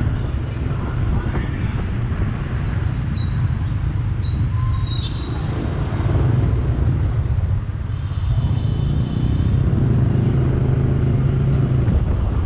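Motorcycle engine running while riding through dense scooter traffic, with steady road noise and short high beeps now and then.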